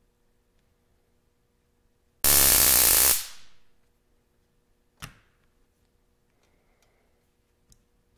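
Yellow Jacket stun-gun phone case sparking across its electrodes: a loud, rapid electrical crackle lasting about a second, about two seconds in. A single sharp click from the case's switch follows a couple of seconds later.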